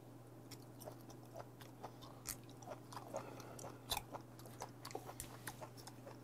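Close-up chewing of raw stalked sea squirt (dolmeongge): soft mouth clicks and smacks a few times a second, one louder about four seconds in, over a low steady hum.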